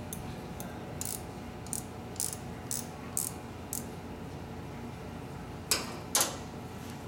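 Metal hand tools clicking against a 1938 Harley-Davidson Knucklehead's clutch: a run of light, sharp clicks about twice a second, then two louder metal clinks close together near the end.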